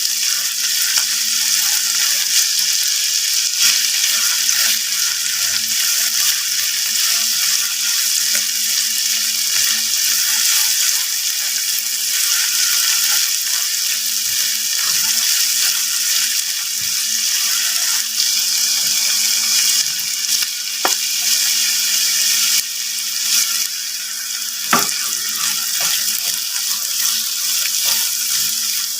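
Food frying in a pan, sizzling steadily, with a faint steady hum underneath and a couple of sharp knocks of a utensil against the pan in the second half.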